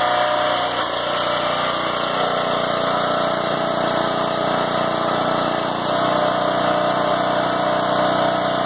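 Engine of a hydraulic log splitter running steadily, its note shifting slightly twice.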